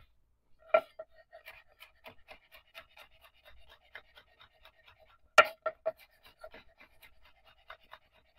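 Chef's knife mincing garlic cloves on a bamboo cutting board: a quick run of light taps of the blade on the wood, several a second, with two harder chops, one about a second in and one about five seconds in.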